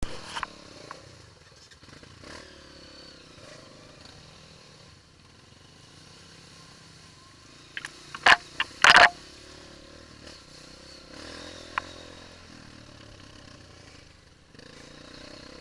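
Honda four-stroke single-cylinder trail bike engine running steadily at moderate revs while riding a rough dirt trail, with clattering from the bike. A few loud, sharp knocks come a little past halfway.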